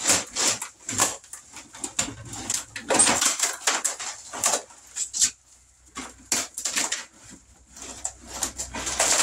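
Thin wood wall paneling being pulled and torn off the studs by hand: a run of sharp cracks, snaps and knocks as the sheet bends and splits away from its nails, with a short lull about five seconds in.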